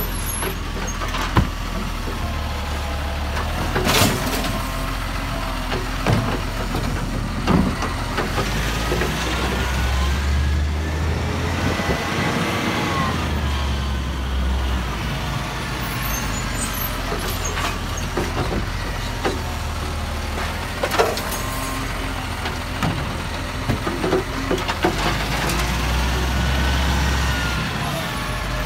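Side-loading garbage truck's diesel engine running steadily, with a few sharp clunks and a whine that rises and falls near the middle.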